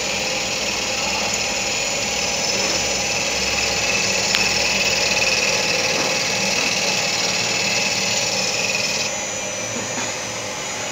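Takamaz X12 CNC lathe rough-turning a metal workpiece in its G71 cycle: the spindle runs steadily while the tool cuts, with a steady high whine over the machine noise. The higher part of the sound drops away about nine seconds in.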